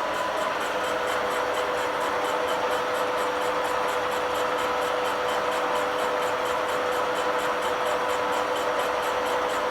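Metal-milling machine running steadily while it machines a steel part, with a constant whine over even machining noise.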